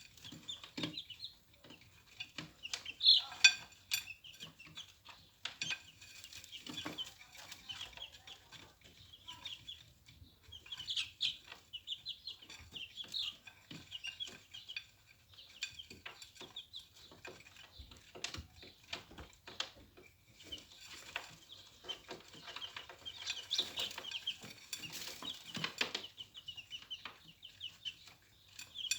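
A group of chicks about 20 days old peeping, many short high cheeps overlapping, mixed with scattered sharp clicks and taps, the loudest a few seconds in.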